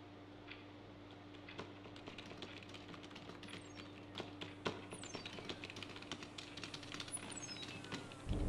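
Keyboard typing clicks over a steady low electric hum, starting sparse and building into a dense, irregular clatter. A few quick falling electronic chirps cut across it.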